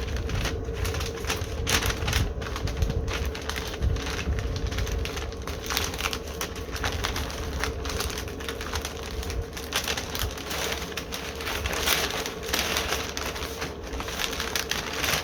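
Butcher paper crinkling and rustling in irregular crackles as it is folded around a rack of ribs, with wind rumbling on the microphone.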